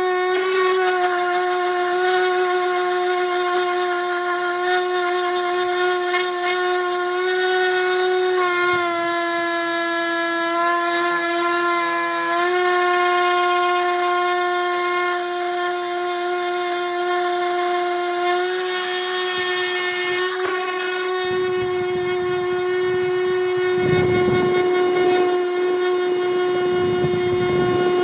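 Electric power sander running with a steady high motor whine, its pitch dipping slightly now and then, and a rougher rumble joining near the end as it works against the wood.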